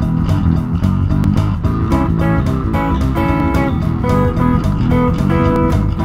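Background music: guitar-led instrumental with plucked and strummed guitar over a bass line.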